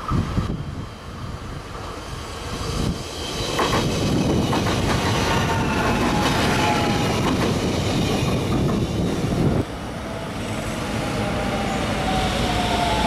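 A grey-and-yellow electric multiple-unit passenger train passing close, its wheels clattering over the rails. About two-thirds of the way in, the sound cuts to another unit approaching a station, with a falling whine.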